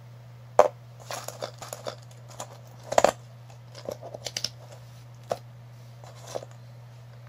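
A clear plastic jar of crumbly red play sand being handled and tilted: scattered sharp clicks and short crackling rustles, the loudest about three seconds in, over a steady low hum.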